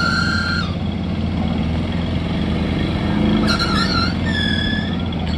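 JCB backhoe loader's diesel engine running steadily. High whining tones come in near the start and again about three and a half seconds in.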